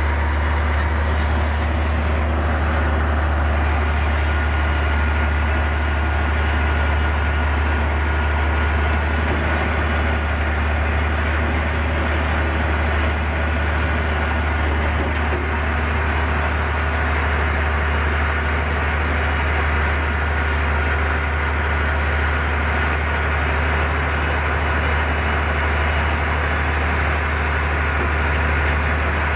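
Heavy diesel earthmoving machinery running steadily: a deep, unbroken engine drone that holds one speed, with a faint steady whine above it from about two seconds in.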